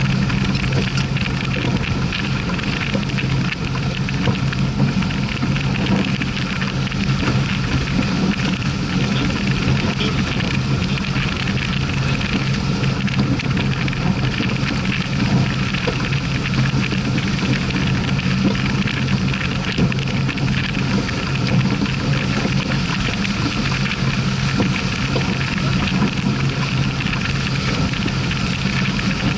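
Wind buffeting the microphone and water rushing along the hull of a sailing yacht under way: a steady, dense rush with a low hum underneath.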